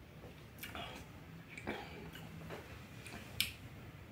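A few faint, short clicks and small taps about a second apart, the sharpest and highest near the end.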